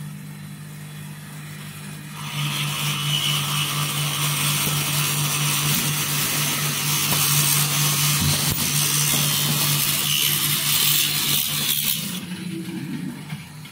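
Automatic screw-driving machine at work: a steady low hum throughout, joined about two seconds in by a loud, rough whirring of the powered screwdriver heads that lasts about ten seconds and then stops.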